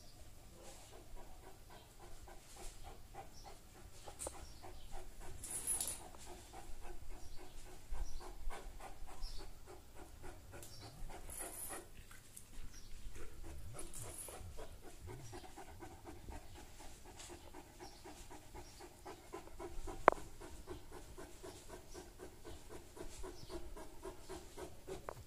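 Saint Bernard panting steadily and rhythmically. A few short high-pitched sounds come through, and a single sharp click about three quarters of the way through is the loudest moment.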